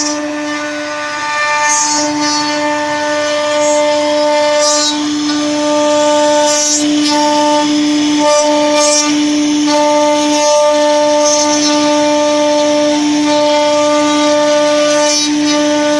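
CNC router spindle whining at one steady pitch as it carves wood, the tone dipping briefly every second or two, with short hissing streaks from the cut.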